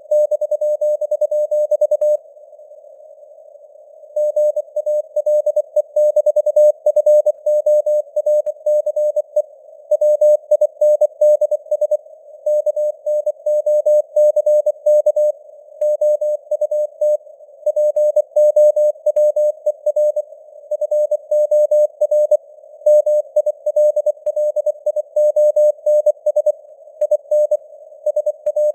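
Morse code sent at 24 words per minute as a single steady-pitched keyed tone, over a narrow band of simulated radio static, with the signal strength fading up and down (QSB). The keying stops for about two seconds, two seconds in, then resumes.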